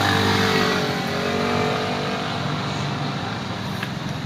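A motor vehicle's engine running as it goes past, loudest about the first second and then easing off into steady traffic noise.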